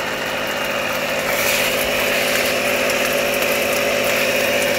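An air compressor running steadily with a hum, under the hiss of water spraying from a shower head onto tent fabric.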